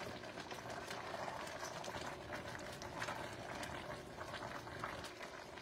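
Pot of creamy soup with wilting spinach bubbling at a simmer, with scattered small pops.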